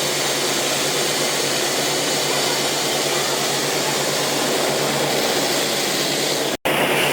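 A steady, even mechanical whooshing with a low hum underneath. It breaks off for an instant near the end and comes back slightly brighter.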